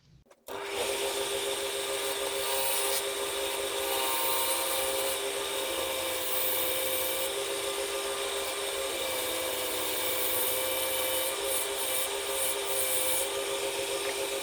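Wood lathe running, with a steady hum under the hiss of a turning tool cutting the spinning wood. It starts about half a second in and holds fairly even throughout.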